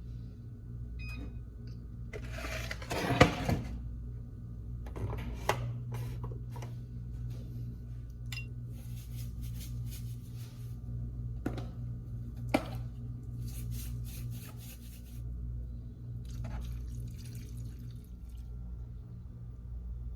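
Kitchen work sounds: a stretch of splashing or pouring water about two to four seconds in, then scattered clinks and knocks of utensils and dishes over a steady low hum.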